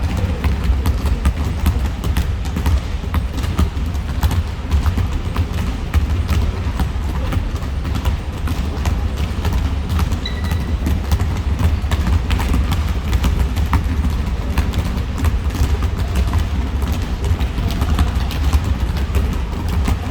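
Basketball play on an indoor court: running footsteps and ball bounces as scattered knocks over a steady low rumble, with a brief high squeak about halfway through.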